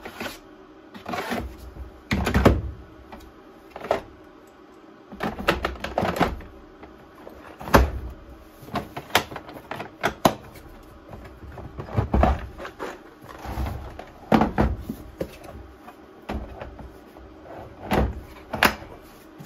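Hard plastic clunks and knocks as cordless drills are set down into a Milwaukee Packout toolbox and plastic cases are stacked onto it. Irregular sharp knocks with short pauses between them.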